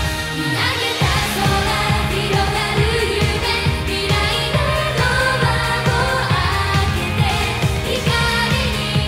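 Japanese idol pop song performed live: young women singing into microphones over a backing track with a steady drum beat and bass.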